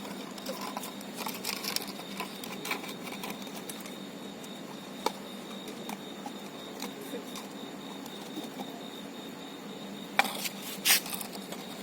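Puppies at a milk bowl: irregular soft clicks and taps, with a sharp click about halfway and two louder knocks near the end.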